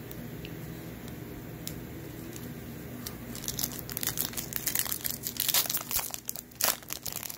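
Plastic trading-card pack wrapper crinkling and tearing as it is opened by hand. It is a dense run of sharp crackles that starts about three seconds in and is loudest near the end.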